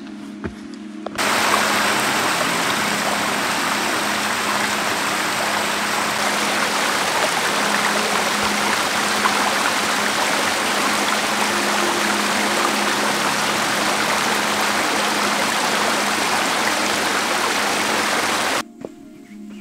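Small mountain stream rushing and splashing over mossy boulders, a steady even rush that cuts in about a second in and stops abruptly near the end.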